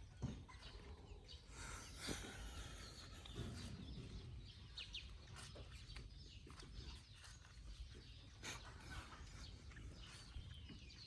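Faint village ambience with scattered distant chicken clucks and calls.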